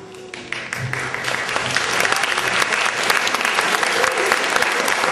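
Audience applause: a few scattered claps shortly in, swelling within about two seconds into full, steady clapping.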